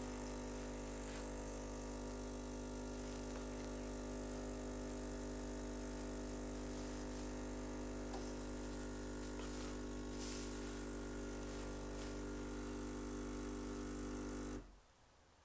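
Vitek VT-1514 BK espresso machine's pump running with a steady buzzing hum while it brews a double cappuccino. There is a couple of small knocks around ten and twelve seconds in. The pump cuts off abruptly near the end as the brew cycle finishes.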